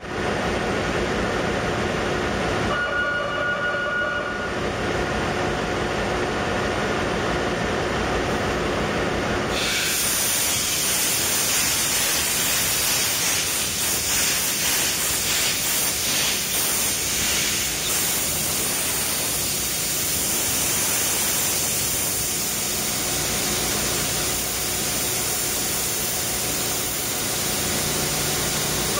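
Engine-room machinery running steadily, with a brief tone about three seconds in. About ten seconds in, a loud hiss of compressed air starts and runs on, pulsing unevenly: the ship's main diesel engine being turned over on starting air with its cylinder indicator cocks open, an air blow that clears the cylinders of water or oil before starting.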